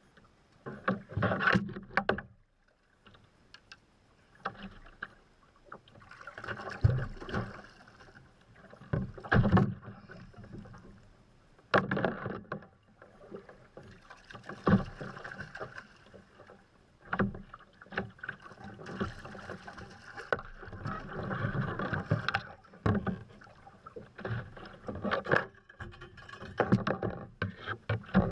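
Water splashing and sloshing around a fishing kayak in uneven surges, with scattered sharp knocks.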